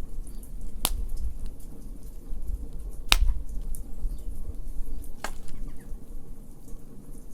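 Wood fire crackling: three sharp pops, about a second, three seconds and five seconds in, over many faint ticks and a steady low rumble of the flames.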